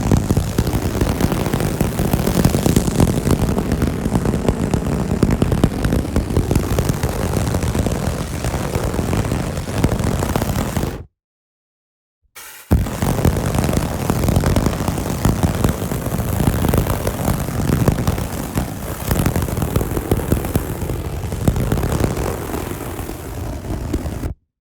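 Fire burning with a low, heavy rumble and a dense crackle throughout. It cuts off abruptly about eleven seconds in, and a second fire recording of the same kind starts about a second later, stopping shortly before the end.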